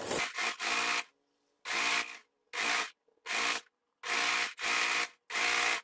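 Electric domestic sewing machine stitching a seam along the fabric edge, running in about eight or nine short bursts of roughly half a second each, with silent gaps between them.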